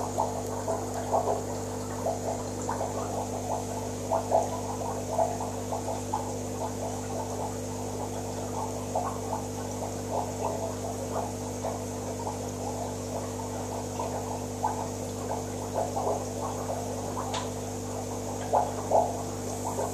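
Aquarium equipment humming steadily, with irregular bubbling and gurgling of water.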